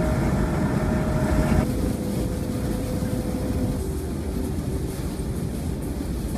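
Road and engine noise inside a moving car on a highway: a steady rush with a faint hum that settles to a lower pitch about two seconds in.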